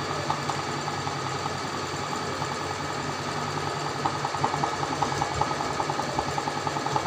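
Usha Janome Allure DLX electric sewing machine stitching continuously while fabric in an embroidery hoop is guided by hand: a steady motor hum with a rapid, even run of needle ticks that come through louder from about four seconds in.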